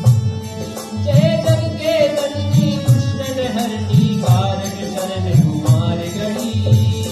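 Live Indian folk-devotional music: a harmonium and a man's sung melody line over a dholak drum beating a steady rhythm, with sharp metallic strikes from a dhantal rod. The singing is clearest in the first half.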